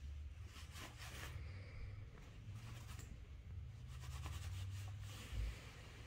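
A domestic cat purring in a low, steady rumble while being stroked, with soft rubbing and rustling of fur and cloth under the hand now and then.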